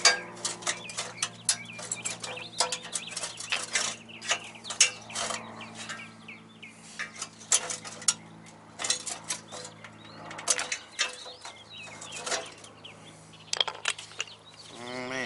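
Irregular metallic clinks, taps and rattles as a Mk2 VW's steel core support is handled and worked at by hand where its welds have been cut. Near the end, a rising whine as an angle grinder starts to spin up.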